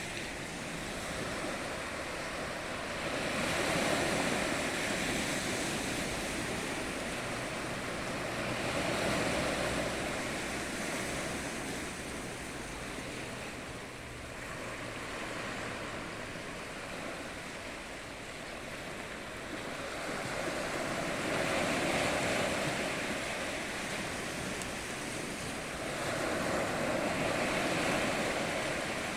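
Ocean surf: waves breaking and washing in, the rush swelling and fading about every six seconds.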